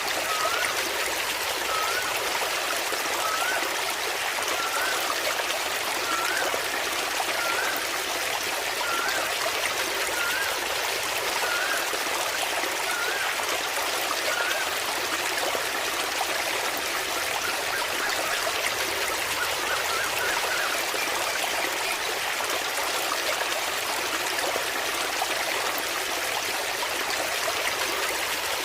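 Waterfall water running steadily. A small, short rising note repeats about every second and a half through the first half, with a brief flurry of them about 20 seconds in.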